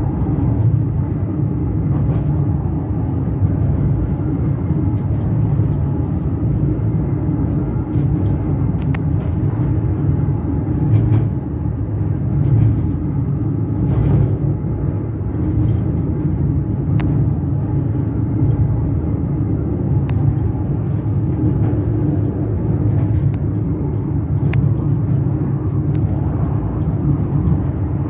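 Parsennbahn funicular car running down its track: a steady low rumble and hum of the car on the rails, with occasional sharp clicks and knocks.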